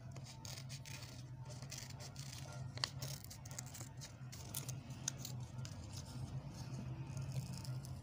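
Scissors snipping through coloured paper: a run of small irregular snips and clicks, one sharper click about three seconds in, over a steady low hum.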